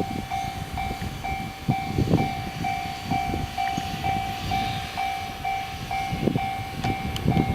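Japanese level-crossing alarm ringing its repeated two-tone clang, about two and a half strokes a second, while a train runs through the crossing with a low rumble and occasional wheel knocks at rail joints.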